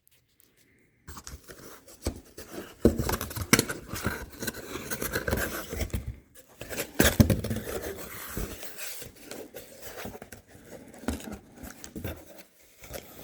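Cardboard shipping box being cut and pulled open, with uneven scraping, tearing and sharp knocks starting about a second in.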